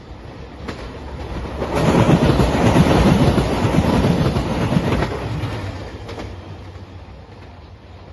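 Nanpu limited express diesel train passing at speed, its wheels clattering over the rails. The sound builds up, is loudest for about three seconds in the middle, then fades as the train moves away.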